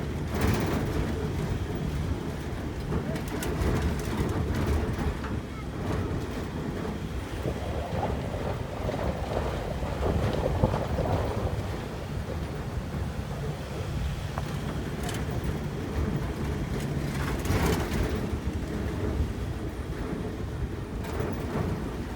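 A vehicle driving on a rough road: steady engine and road rumble, with occasional knocks and rattles from the bumps.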